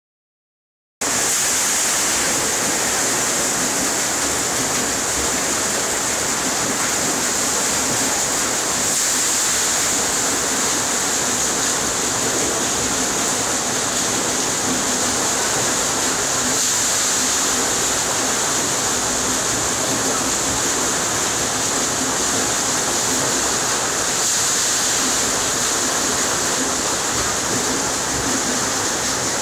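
Water rushing and splashing steadily over a turning wooden mill wheel, starting about a second in.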